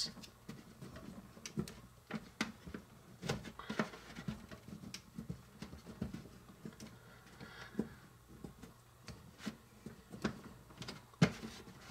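Small wooden rolling pin rolling bread slices flat on a small baking tray: soft, irregular taps, clicks and rustles, with one sharper click shortly before the end.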